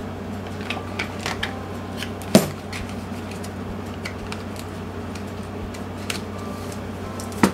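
Light clicks and taps from a makeup palette and its packaging being handled, with one sharper knock about two and a half seconds in and another near the end, over a steady low hum.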